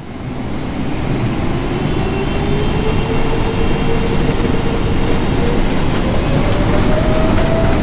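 Jet airliner's turbofan engines at takeoff power, heard inside the cabin: a loud, deep rumble with a whine that rises steadily in pitch as the engines spool up.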